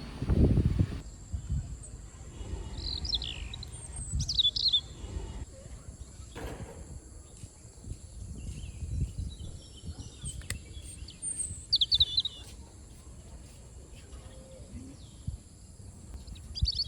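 Small birds chirping in short, scattered calls, over an uneven low rumble with a few brief knocks.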